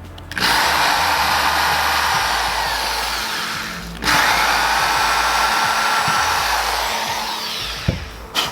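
Power drill running in two long bursts, about three and a half seconds each, with a short stop in between: drilling pilot holes for mounting screws. A couple of sharp clicks near the end.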